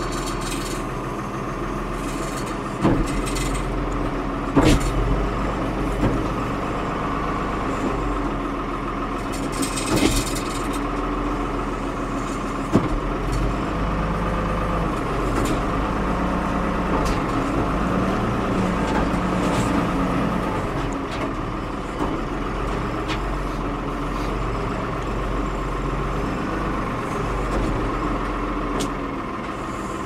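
Ford 550 backhoe's diesel engine running steadily while its loader bucket tears into a corrugated-metal and wood roof. Several sharp bangs and clanks of metal sheeting come in the first dozen seconds or so.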